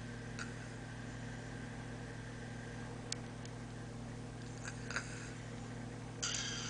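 Steady low hum of a motor or fan with a few faint clicks. About six seconds in, a loud hissing snore from a sleeping man starts.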